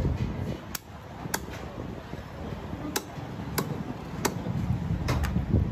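Heavy cleaver chopping chicken pieces on a wooden log chopping block: about seven sharp strikes, unevenly spaced, with two coming close together near the end, over a steady low background rumble.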